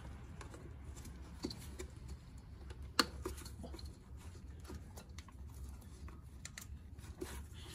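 Faint handling noises from a gloved hand working at a car's front strut assembly: light rustling and scattered small clicks, with one sharper click about three seconds in, over a low steady hum.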